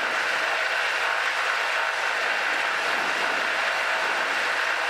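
Cessna 182Q's six-cylinder Continental O-470 engine and propeller running steadily at 1700 RPM during the pre-takeoff run-up.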